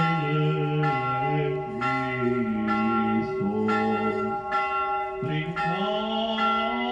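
Church bell ringing, struck about once a second, its tones hanging on between strokes, with a low voice chanting underneath.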